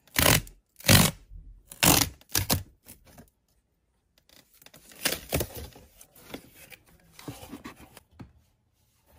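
Perforated tear strip of a cardboard shipping box being ripped open: four short, loud rips in the first three seconds, then a longer, rougher stretch of tearing from about five to eight seconds in.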